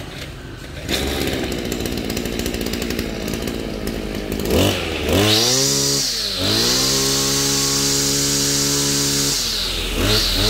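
Two-stroke brush cutter engine catching about a second in and running at idle, then revved: a short rise and fall, then held at high speed for about four seconds before dropping back to idle, with a brief rev again near the end.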